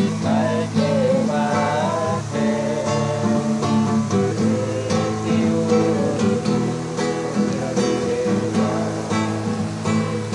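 Background music played on strummed and plucked acoustic guitar.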